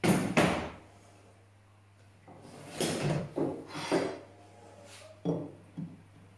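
Handling noises on a workbench: two sharp knocks at the start, a run of scraping and knocking about two to four seconds in, then a clunk late on as a red aluminium router insert plate is set into its recess in the benchtop.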